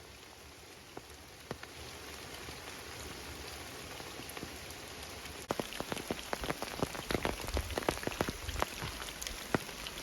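Rain falling in a steady hiss; from about five and a half seconds in, many sharp, separate drops strike close by and the sound grows louder.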